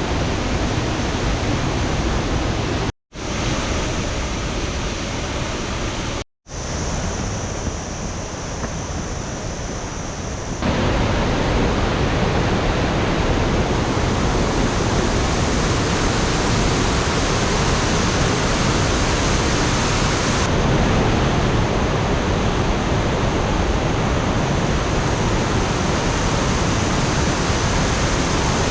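Steady rushing of water from Ryuzu Falls, a waterfall. Two brief drops to silence come about three and six seconds in, and about ten seconds in the sound becomes louder and fuller.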